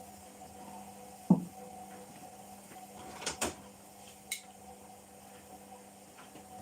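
Household things being handled and put away: one sharp knock about a second in, then a few lighter clicks and taps, over a steady low hum.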